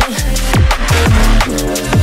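Background music: an electronic track with a fast drum beat and deep bass notes that slide down in pitch.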